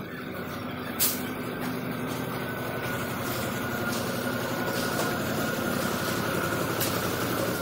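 Truck engine running steadily at low speed as a loaded flatbed self-loader truck moves slowly, with a faint steady high whine and one short knock about a second in.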